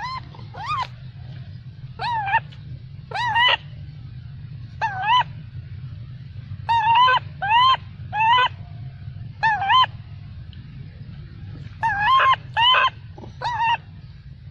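Young long-tailed macaque giving about a dozen short, shrill, wavering cries, each about half a second long, singly or in quick runs of two or three, over a steady low hum. These are the distress cries of a baby monkey refused milk by its mother.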